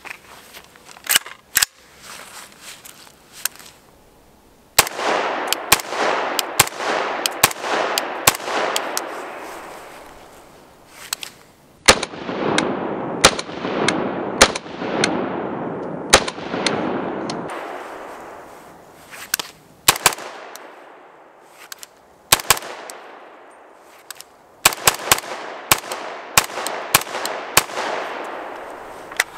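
Unsuppressed 300 Blackout rifle fired with 220-grain subsonic rounds through a Q Cherry Bomb muzzle device. It fires three strings of rapid shots, each trailing off in a long echo, after a few lighter clicks near the start.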